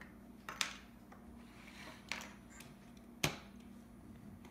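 About four sharp plastic clicks and taps of LEGO pieces being handled and set down on a wooden table, the loudest about three seconds in.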